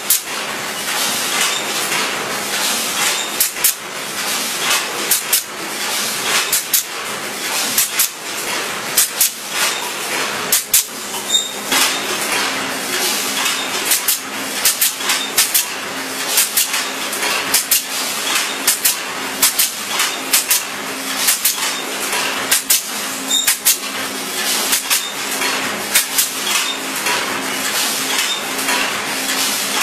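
Pneumatic C-ring gun firing over and over, each shot a sharp metallic snap as it clinches a C-ring around the spring unit's border wire, in quick succession, with a faint air hiss and a steady low hum underneath.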